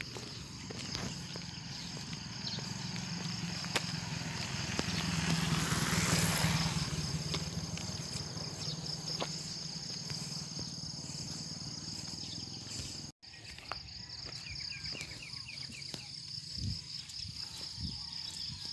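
Steady high-pitched drone of insects, with a vehicle passing by, growing louder and then fading about four to seven seconds in. Light rustles and knocks of a handheld phone run over it, and the sound cuts out for an instant about thirteen seconds in.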